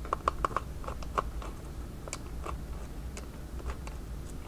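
Small precision screwdriver clicking in a tiny screw as it is backed out of a plastic battery pack case: a quick run of light clicks in the first second or so, then scattered single clicks.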